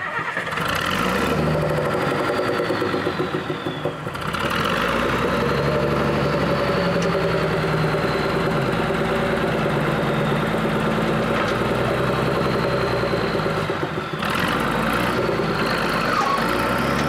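Diesel dump truck engine running steadily while the bed is raised on its hydraulic hoist, with a thin high whine above the engine note. The engine note dips briefly about four seconds in and again near fourteen seconds.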